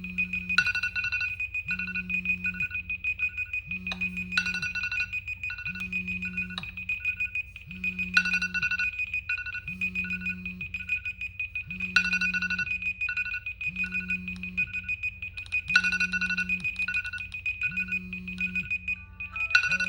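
Smartphone alarm tone: a short plucked-sounding melody over a repeating bass note, looping about every four seconds.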